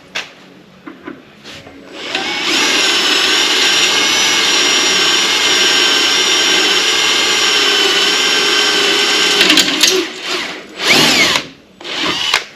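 Electric drill with a 9/64 cobalt bit drilling out a broken-off bolt, running at a steady whine for about seven seconds before stopping, then a few short bursts. The bolt is soft and drills easily.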